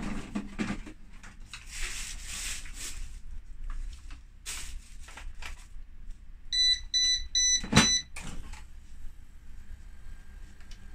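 Tefal dehumidifier's control panel beeping four times in quick succession as it is powered up, with a sharp knock at the last beep. Before that come rustling and knocks from handling the opened unit's parts and wiring.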